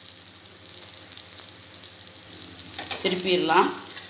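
Oil sizzling under a green-gram (pasi payaru) dosa frying on a pan: a steady high hiss with fine crackles.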